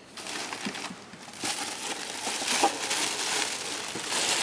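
Packaging wrap rustling and crinkling with small clicks as kit parts are handled and unwrapped, easing briefly about a second in.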